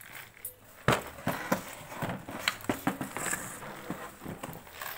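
Irregular hard-plastic knocks and taps, about a dozen, from a baby in a plastic baby walker handling its toy tray and bumping about. The loudest knock comes a little under a second in, and they thin out near the end.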